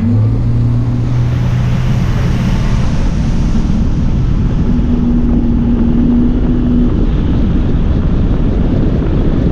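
Bass boat's outboard motor running steadily at speed, a low even drone under a loud rush of wind over the microphone.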